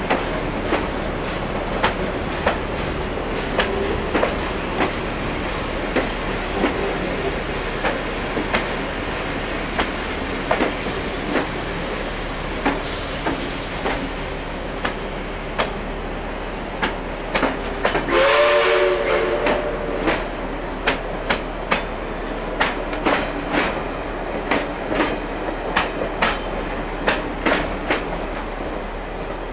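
Steel wheels of passenger carriages clicking over rail joints as a train rolls past, a steady clickety-clack over a continuous rumble. About two-thirds of the way through comes a brief, louder blast with a low chord-like tone.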